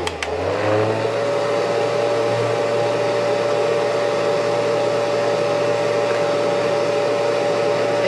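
Andis bonnet hair dryer's blower running and inflating the soft hood through its hose. Two quick clicks come at the very start. The motor's whine then rises over about a second and holds steady over a constant rush of air.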